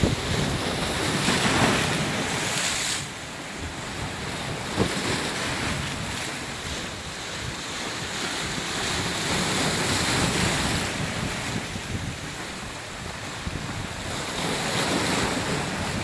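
Sea surf washing and breaking against a rocky shore of large boulders, swelling louder a few times as waves come in. Wind buffets the microphone with a low rumble.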